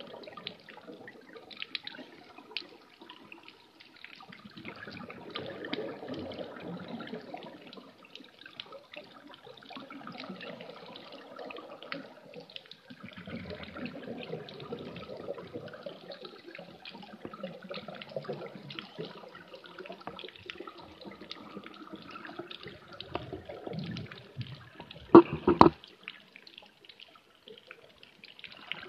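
Underwater ambience heard through a submerged camera: muffled rushing and bubbling water that swells and fades in slow surges, with a fine crackle throughout. Two or three sharp knocks about 25 seconds in are the loudest sounds.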